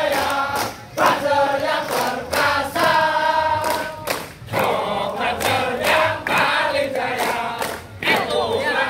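A large group of men singing a yel-yel marching chant together in unison, phrase by phrase, with sharp hand claps between the lines.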